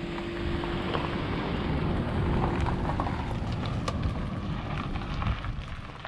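Wind buffeting the microphone in uneven gusts, with a steady low hum that fades away midway and scattered light clicks in the second half.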